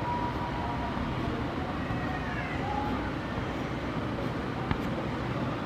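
Steady low background noise, like distant traffic, with a faint high tone that stops about a second in and a single sharp tick near the end.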